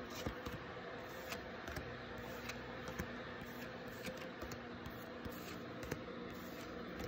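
Faint, scattered ticks and light rustles of Pokémon trading cards being handled and flipped through, over a low steady hum.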